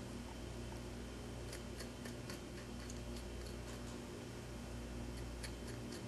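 Small scalpel-type blade cutting and separating the skin of a mule deer's head, giving faint, irregular small clicks and snicks in loose clusters, over a steady low hum.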